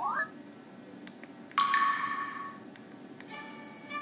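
LG KS360 mobile phone playing its built-in system tones through its small speaker. A short rising chirp comes at the start, then a bright chime about a second and a half in that rings out for about a second, and another short electronic tone near the end. Faint clicks fall between the tones.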